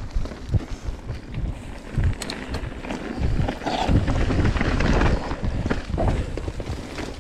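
Wind buffeting the microphone over the rattle, knocks and tyre rumble of a mountain bike riding over rough dirt, louder for a stretch in the middle.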